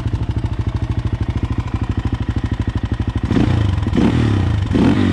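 KFX400/LTZ400 quad's 400 cc single-cylinder four-stroke idling, warmed up, through a newly fitted Yoshimura slip-on exhaust with the spark arrestor still in. In the last two seconds it is revved in three quick blips. It is not that loud.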